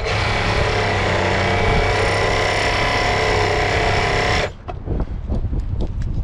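18V cordless jigsaw with a metal-cutting blade running and sawing at a solid steel concrete-form stake, at a fixed speed the owner finds too high, and barely cutting into it. The saw stops about four and a half seconds in, leaving quieter noise with a few short knocks.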